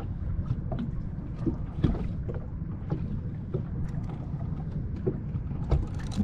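Steady low rumble of wind on the microphone and water around a small boat on open water, with a few scattered light clicks and knocks.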